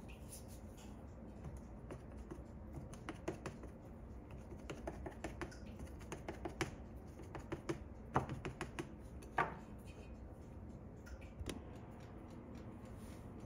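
Light, irregular clicks and taps from a small knife cutting slits into the dough top of a pie in a metal pan, with a couple of louder knocks past the middle.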